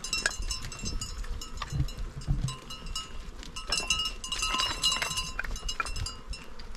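A flock of sheep and goats with many small bells ringing at several pitches, overlapping and jingling throughout.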